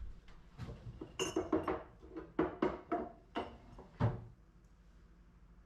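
Dishware clinking and knocking: a quick run of sharp clinks and taps, a few of them ringing briefly, ending about four seconds in.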